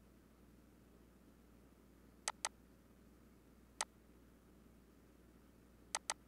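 Computer mouse clicks over a faint low hum: a quick double click about two seconds in, a single click near four seconds, and another double click near the end.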